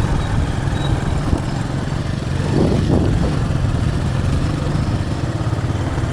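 Bajaj Pulsar 220's single-cylinder engine running steadily under load while climbing, its pitch swelling briefly about halfway through.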